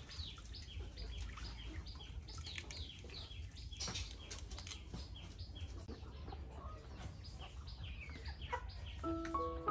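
Birds chirping in a quick run of short, high, falling chirps, with backyard chickens clucking now and then.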